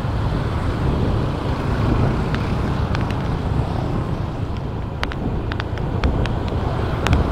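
Road vehicle on the move: a steady low rumble of engine and road noise with wind buffeting the microphone, and a scatter of sharp clicks, most of them in the second half.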